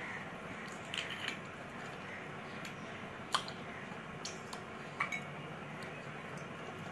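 Eating by hand: fingers working rice and mutton curry on a plate, and chewing, with a few small sharp clicks, the loudest about halfway through, over a steady background hiss.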